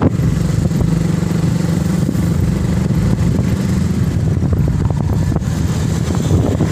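Motorcycle engine running steadily while the bike rides along the road, with road noise.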